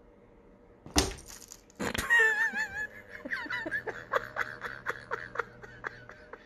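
A cat chattering and chirping at a bird through a window: a wavering, trilling chirp, then a fast run of small clicks mixed with short squeaks. Two sharp knocks come first, about a second in and again just before two seconds.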